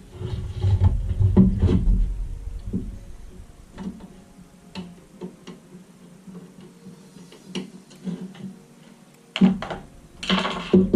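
Irregular clicks and knocks, with low rumble in the first two seconds and a louder cluster near the end: the sound of hands and tools handling a graphics card and its parts on a work surface.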